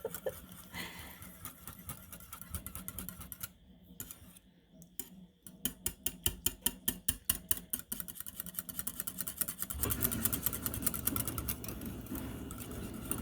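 Wire whisk beating a milk mixture in a bowl, clicking against the bowl in a quick rhythm of about five strokes a second from a few seconds in. A low steady hum comes in near the end.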